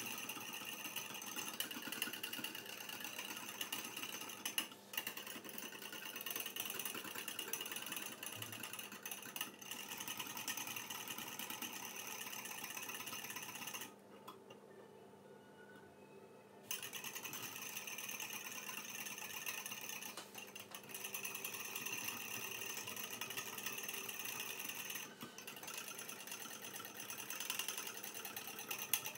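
Metal spoon whisking instant coffee, sugar and water by hand in a small ceramic bowl: a fast, continuous clinking and scraping against the bowl as the dalgona mixture is beaten toward a foam. The whisking stops for about three seconds around the middle, then starts again.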